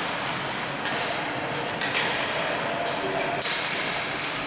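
Boot hockey play on an indoor ice rink: a few sharp stick knocks on the ice, about a second apart, over a steady echoing hall noise with faint voices.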